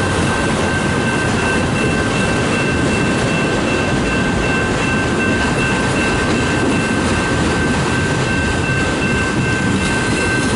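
Freight train cars, largely autoracks, rolling past at close range: a steady rumble of wheels on rail with a thin, steady high whine held over it, mixed with the hiss of hard rain.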